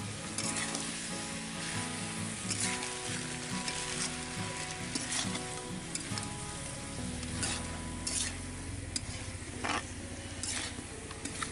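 Duck meat and spice powders sizzling as they fry in a steel kadai, with a metal spatula stirring and scraping against the pan in repeated, irregular strokes.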